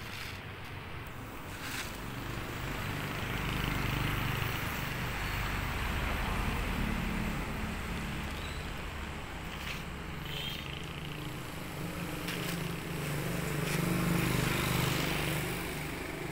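Street traffic: motor vehicle engines running close by, swelling louder twice as vehicles pass.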